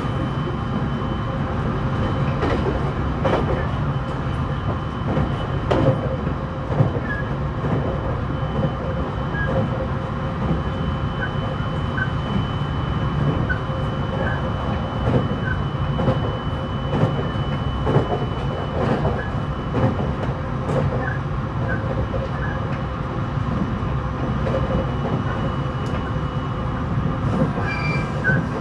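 JR East E721 series 1000 subseries electric train running along the line, heard from inside the motor car KuMoHa E721-1018. There is a steady rumble of wheels on rail, with irregular knocks from the track and a faint steady hum.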